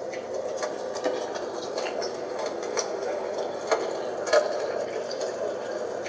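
NURSAL white noise machine's small speaker playing one of its water nature-sound tracks: a steady watery hiss dotted with many small, irregular crackles.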